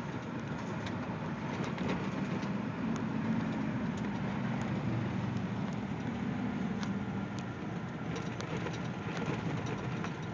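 Vehicle driving on a gravel road, heard from inside the cab: steady engine drone and tyre noise, with scattered small clicks and rattles.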